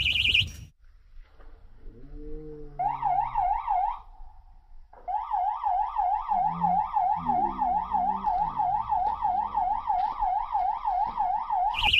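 Electronic fishing bite alarm sounding a warbling, siren-like tone that swings up and down about four times a second, signalling a fish taking the bait; it sounds briefly about three seconds in, then steadily from about five seconds on. A man's voice calls out briefly underneath.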